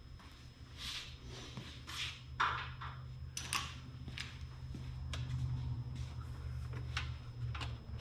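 Scattered clicks, scrapes and knocks of hand work on motorcycle parts, over a steady low hum.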